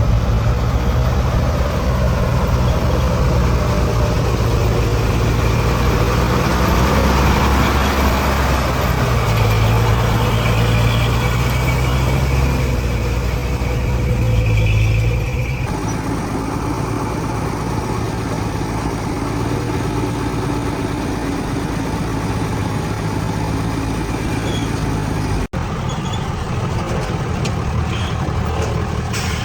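Heavy diesel engine running steadily. The sound changes abruptly a little over halfway through and drops out for an instant near the end.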